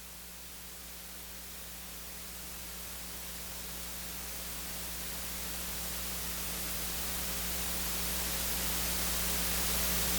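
Steady hiss with a low electrical hum, growing smoothly louder throughout as the recording fades in.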